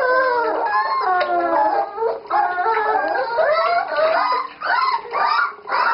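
A litter of wet tachskrieger puppies howling and whimpering together, many high cries overlapping and rising and falling without pause: distressed at being bathed.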